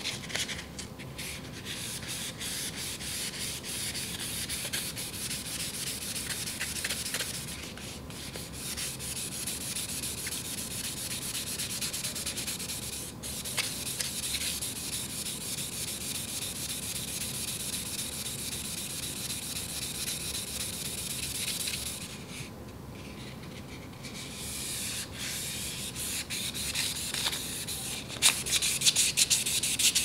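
Sandpaper rubbed back and forth over the flat of a Victorinox chef's knife's steel blade in quick short strokes, a steady scratchy hiss, polishing out scratches left by improper whetstone sharpening. The rubbing pauses briefly about eight seconds in and again midway, and for about two seconds near twenty-three seconds in.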